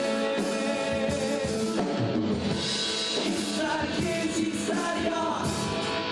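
A live band performing a song: a man sings lead into a microphone over acoustic and electric guitars, bağlama and a drum kit, in a rock-style arrangement.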